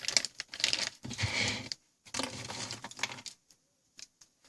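Crinkling and rattling of a plastic snack bag with hard O'Gamja potato snack pieces inside, in two bursts, then a few faint clicks near the end.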